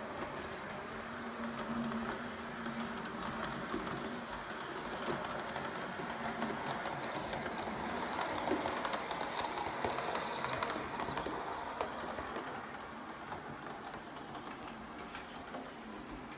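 H0-scale model train, a BLS Rbde 4/4 unit with its coaches, running on the layout track: a steady rolling rumble with a faint motor hum and fine clicking of the wheels. It grows louder around the middle as the train passes close by, then fades.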